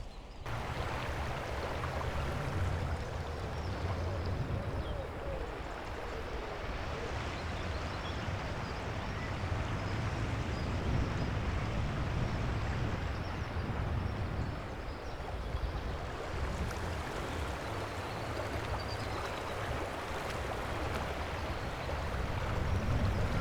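Small stream of running water, a steady rushing sound, with an uneven low rumble of wind on the microphone underneath.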